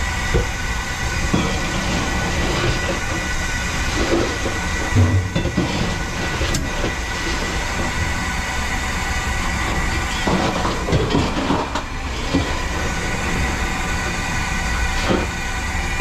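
Commercial Hoshizaki ice maker running its cycle: a steady mechanical hum and rumble with a thin high whine, broken by a few light knocks and clicks.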